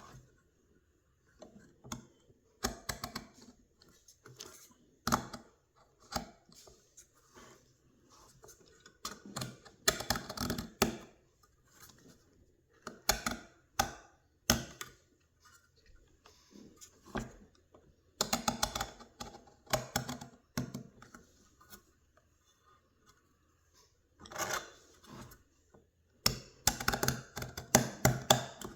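Hobby knife scraping old foam-surround adhesive off the rim of a 6-inch McIntosh car speaker, in irregular bursts of quick scratchy clicks with short pauses between strokes.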